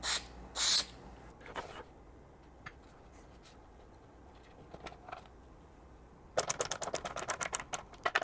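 Two short hisses from an aerosol spray can at the start, then a few seconds of low background, then a quick run of light clicking and rattling near the end as the webbing strap and its metal bracket are handled.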